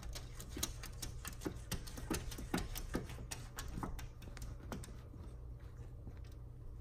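Cat claws tapping and scratching on window glass: an irregular run of sharp clicks, several a second, that thins out after about five seconds.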